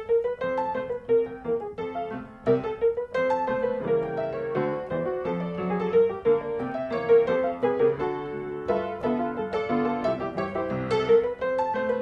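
Background piano music: a quick stream of notes, with one note repeated again and again over lower notes.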